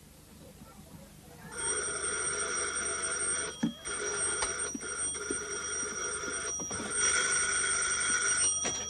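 Electric doorbell ringing hard and long, held down for about seven seconds with a few brief breaks, starting about a second and a half in.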